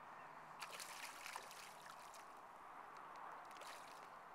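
Faint splashing and trickling water as a hooked fish is drawn to a landing net at the surface, with a cluster of crackly splashes about a second in and a few more later.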